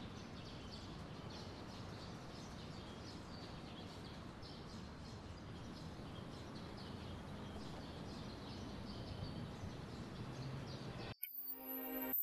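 Faint outdoor background noise with small birds chirping over and over in short, high calls. Near the end the ambience cuts off and chiming music begins.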